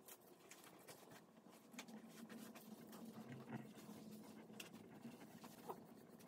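Faint brushing of acrylic paint onto wooden popsicle sticks: soft, scratchy bristle strokes with small ticks as the brush drags over the ridges of the sticks.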